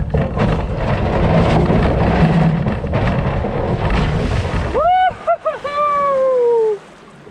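Mini jetboat's engine and jet with water and wind rushing as it pulls away from the gravel bar. About five seconds in the rumble drops away and a high whooping cry rises and breaks, then falls in a long sliding tone and cuts off.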